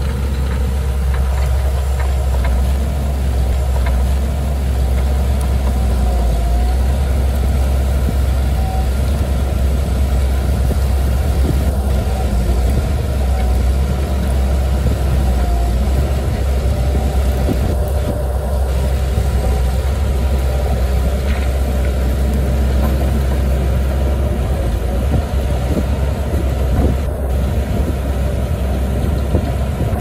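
Bulldozer's diesel engine running steadily, a deep even drone.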